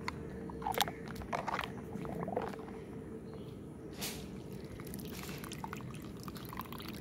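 Soapy water squelching and sloshing as a hand rubs a plastic toy elephant in a tub of suds, with a sharp splash about four seconds in, then water running off the lifted toy near the end.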